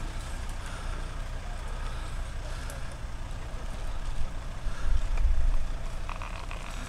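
Low, steady rumble of a vehicle engine running nearby, swelling louder for about a second around five seconds in.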